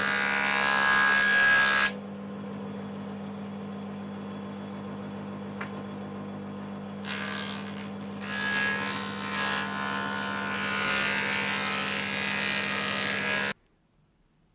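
Axminster 6-inch surfacer (planer) running with a steady motor hum, louder and rougher while pallet-wood pickets pass over its cutter block, first at the start and again for several seconds in the second half. The sound cuts off abruptly near the end.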